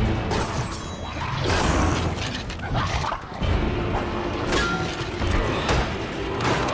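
Battle sound effects of a sword fight: repeated metal clashes and heavy thuds of blades and armour, with film music underneath.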